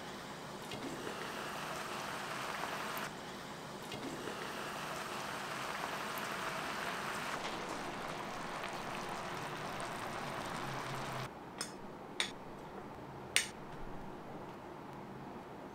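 Chicken adobo simmering in a covered pan, a steady hiss of cooking liquid that stops about eleven seconds in. Three sharp clicks follow near the end, the last the loudest.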